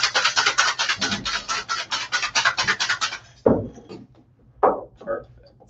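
Ice rattling inside a metal cocktail shaker shaken hard and fast, about six strokes a second, stopping abruptly about three seconds in. A few separate knocks and clinks follow.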